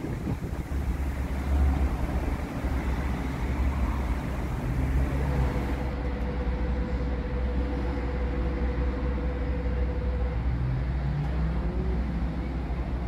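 Steady low rumble of road traffic, with a faint steady whine that holds for about five seconds in the middle.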